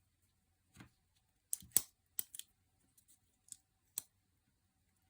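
Folding pocket knife being handled: a series of short, sharp metallic clicks and snaps, about eight in all, the loudest just under two seconds in, as the blade is opened and closed.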